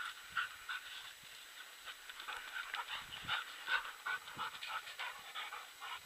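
Vizsla panting, a steady run of short quick breaths.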